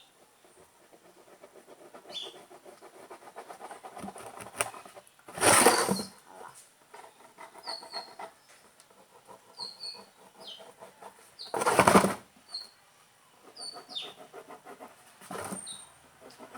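Pen scratching on cardboard in runs of quick strokes while drawing circles, with short high squeaks. There are two louder rasping bursts of under a second, about five and a half and twelve seconds in.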